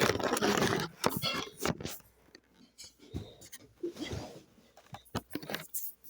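Small plastic toy figure being handled and its parts fitted back together: a rustle in the first second, then scattered clicks and scrapes of plastic on plastic.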